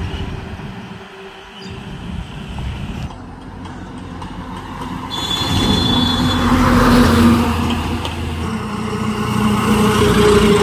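Goods trucks driving past one after another, diesel engine hum and tyre noise swelling as each comes close, loudest about seven seconds in and again near the end.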